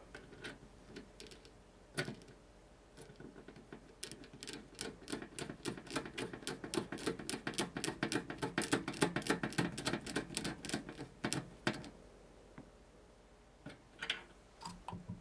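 Screwdriver turning a small screw to fasten a push-pin bracket onto a CPU cooler's heat sink: a quick, dense run of small clicks that grows louder and stops shortly before the end, followed by a few single clicks.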